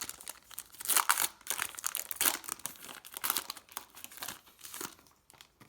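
Plastic wrapper of a Panini Legacy football card pack being torn open and crinkled, an irregular crackling that stops about five seconds in.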